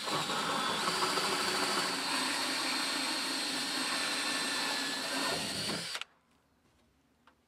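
Cordless drill turning a large hole saw in reverse, cutting a hole through the plastic wall of a rainwater tank, which keeps the saw from grabbing. It is a steady whir with a thin high whine and cuts off suddenly about six seconds in.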